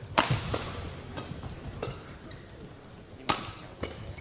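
Badminton rackets striking the shuttlecock during a doubles rally: a series of sharp hits, one every second or so, with the loudest right at the start and just past three seconds.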